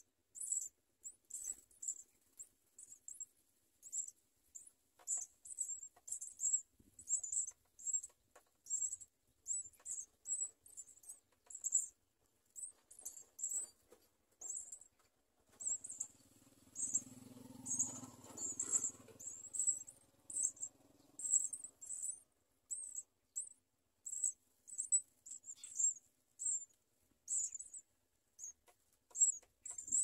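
House sparrow nestlings begging with rapid, very high-pitched cheeps, short and irregular, several a second. From about a quarter of the way in to about two-thirds through, a low rustling noise runs underneath.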